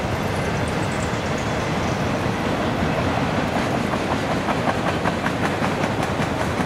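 Freight train of autorack cars rolling past: a steady rumble of steel wheels on the rails, with a quick run of clickety-clack clicks from the wheels crossing rail joints starting about four seconds in.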